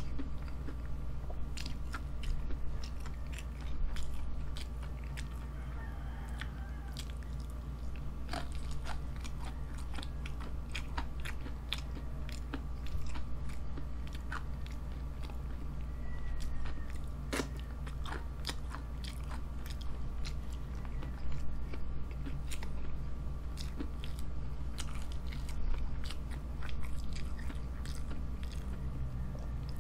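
Close-miked mouth sounds of a person chewing fried chicken with cheese sauce and rice, with many scattered short crunches and wet clicks. A steady low hum runs underneath.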